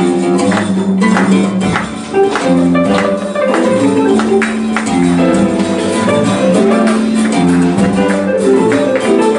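A live band playing: melodic lines moving in steps over a steady percussion rhythm.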